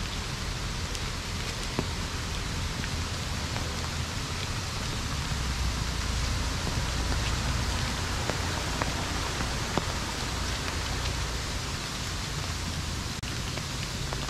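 Steady rain falling on leaves and the ground, an even hiss with scattered drop ticks and a low rumble underneath.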